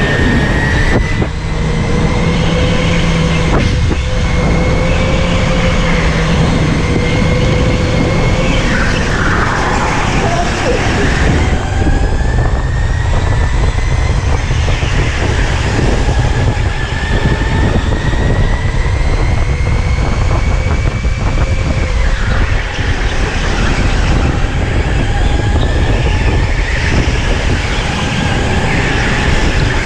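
Electric go-kart driven hard, heard onboard: the motor's high whine climbs steadily with speed and drops sharply when the driver slows for a corner, twice, about a third of the way through and again about three quarters through, over a constant rumble of tyres on the track.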